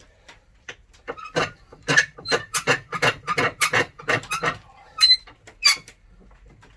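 A quick run of sharp knocks and clatters, about three a second, then two more, a few with a short metallic ring: a plywood block being set in a metal bench vise and clamped.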